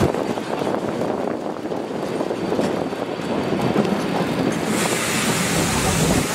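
Durango & Silverton narrow-gauge train running along the track: continuous wheel-on-rail rumble and rattle of the coach's running gear, with a brighter hiss coming in about five seconds in.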